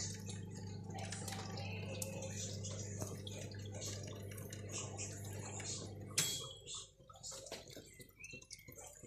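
Rain dripping and pattering onto wet concrete and puddles, a dense run of small drips and splashes. A steady low hum runs underneath and cuts off suddenly with a click about six seconds in, leaving the drips alone.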